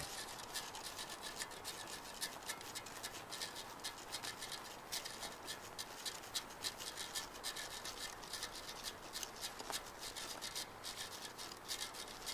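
Faint scratchy, crackling hiss, dense with rapid small clicks.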